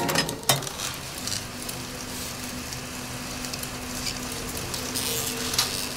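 Film editing table: a sharp click about half a second in, then a steady motor hum with a crackling hiss as the machine runs.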